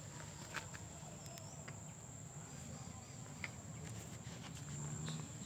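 Faint outdoor ambience: an insect's steady high-pitched buzz, with a low hum underneath that swells slightly near the end and a few faint clicks.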